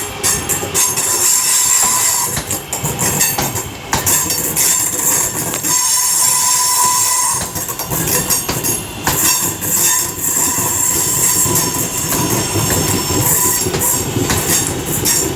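Class 323 electric multiple unit running close past on the rails: continuous wheel-and-rail noise with repeated clicks over the rail joints, and a steady squeal about five to seven seconds in.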